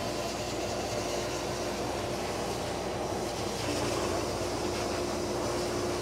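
Pet grooming dryer blowing air from its hose nozzle onto a wet cat's coat after a bath: a steady rushing whoosh with a faint hum underneath.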